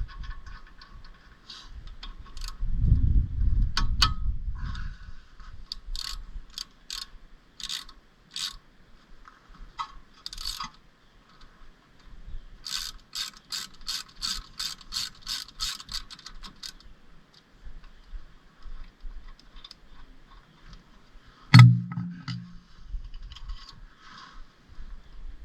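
Hand ratchet wrench clicking in runs as bolts are worked loose, including one steady run of about three to four clicks a second. There is a low rumble about three seconds in, and a single sharp, loud knock near the end.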